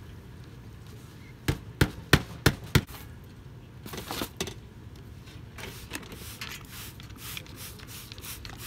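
Five sharp hammer blows in quick succession, about three a second, as nails are driven on the house wall. They are followed by softer, irregular scraping and rubbing sounds.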